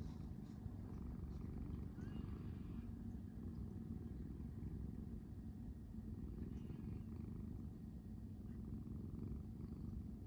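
Long-haired orange tabby cat purring steadily up close as it dozes, a continuous low rumble that swells and eases slightly with its breathing.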